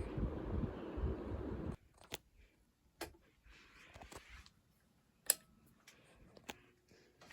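Air from a running ceiling fan buffeting the microphone, which cuts off abruptly a little under two seconds in. Then it is quiet, with a few sharp clicks and faint rustling; the loudest click comes about five seconds in.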